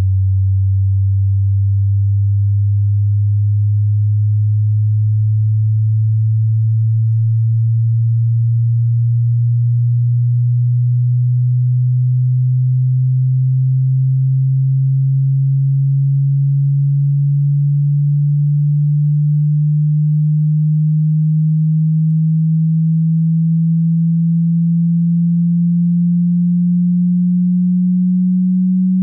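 Hearing-test sine tone, a single pure low tone that glides slowly and steadily upward in pitch, climbing to about double its starting pitch, at an even loudness.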